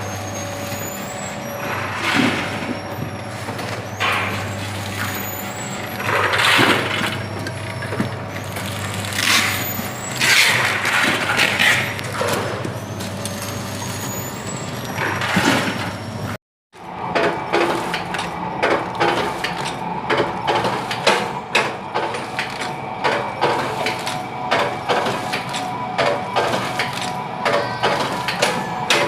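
Food packaging machine running: a steady mechanical hum with a short burst of hiss every two to three seconds. After a brief cut partway through, it becomes a busier run of rapid clicks and clatter over a steady tone.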